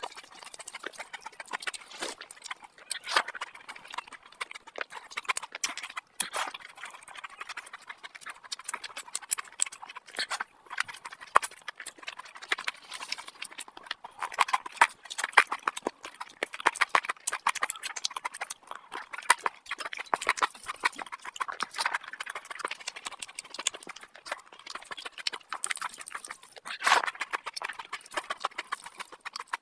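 Close-miked wet chewing and lip smacking of a person eating curry with rice and meat by hand: a dense, continuous run of sticky clicks and smacks, with fingers squelching through curried rice.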